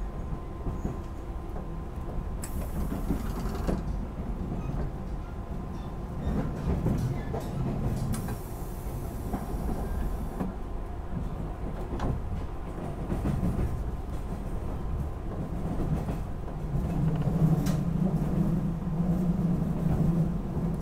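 JR 185 series electric train running, heard from inside the passenger car: a steady rumble of wheels on the track with occasional clicks over rail joints.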